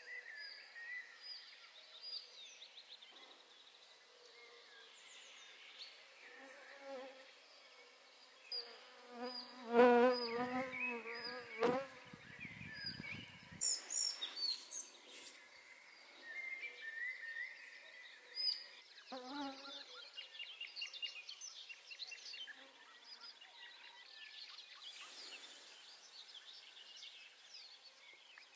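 A flying insect buzzes close past the microphone with a wavering hum, loudest about ten seconds in and again briefly near twenty seconds. Small birds sing throughout with short high chirps and trills.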